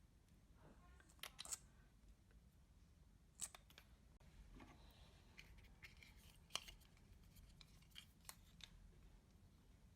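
Faint, scattered clicks and crackles of makeup and its containers being handled and broken up, a few seconds apart, with the sharpest click about six and a half seconds in.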